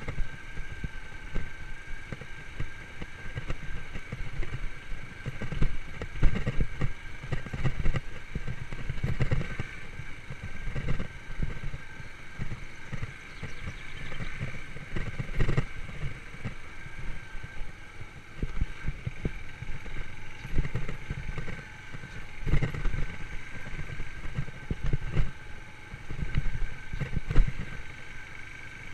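Yamaha YBR125 motorcycle's single-cylinder engine running steadily while riding a forest track, with irregular low rumbles and knocks throughout.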